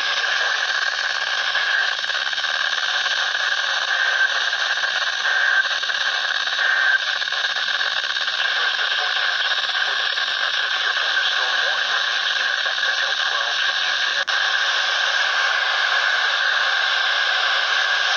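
Steady radio static hiss from a receiver on a weak, noisy signal, with a few faint short tones about four to seven seconds in.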